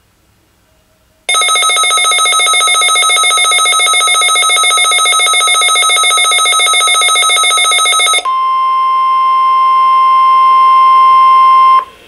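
Midland weather alert radio going off for a NOAA Weather Radio Required Weekly Test: a loud, rapid electronic beeping from its speaker for about seven seconds, then a single steady alarm tone, the NOAA 1050 Hz warning alarm, for about three and a half seconds, cutting off near the end.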